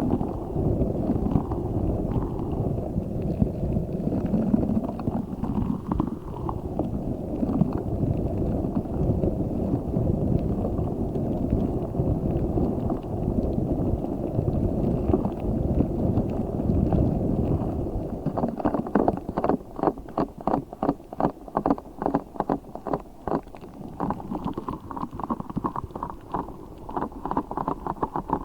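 Giant spiky orbeez-filled squishy ball being squeezed and kneaded close to the microphone, giving a continuous wet squelching rumble. About two-thirds of the way in it changes to a quick run of crisp squishes or taps, three to four a second.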